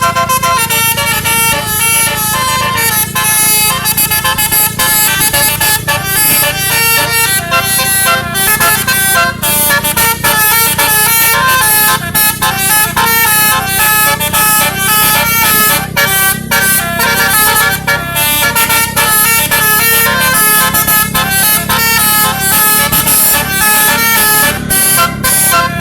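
Indonesian 'telolet' bus horn, a basuri multi-tone air horn, playing a quick stepping melody of short notes, over a steady low rumble.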